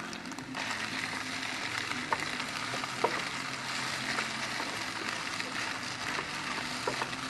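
Scrambled emu egg sizzling in a hot pan, a steady frying hiss with a few sharp crackling pops; the sizzle gets louder about half a second in, over a faint low steady hum.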